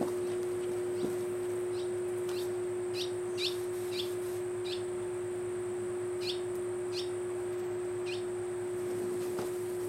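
A bird chirping in short, quick falling chirps, about nine times over the first eight seconds, over a steady low hum that holds one pitch throughout.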